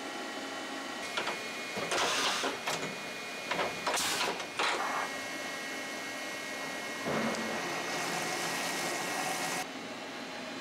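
Milling machine running with a steady hum of fixed tones. Several short loud bursts of noise come about two and four seconds in, and a rougher stretch near the end cuts off abruptly.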